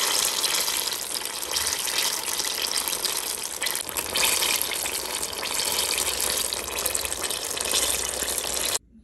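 Oil sizzling and bubbling hard around banana-and-jackfruit spring rolls (turon) deep-frying in a wire fryer basket, a loud steady crackling hiss that cuts off suddenly near the end.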